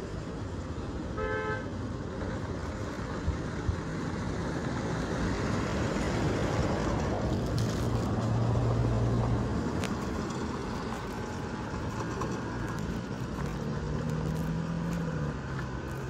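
A vehicle driving slowly over a rough construction road, its engine running under steady road and wind noise, with a short horn toot about a second in. The engine note shifts pitch in the second half as it changes speed.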